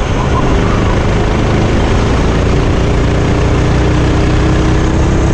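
Sodi RT8 rental kart's four-stroke engine running under throttle, its pitch climbing slowly through the second half, over a steady rush of noise.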